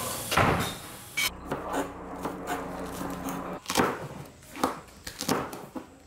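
Kitchen knife chopping green chili peppers on a plastic cutting board: a run of short, irregular chops, about two a second. A steady hiss in the first second cuts off suddenly.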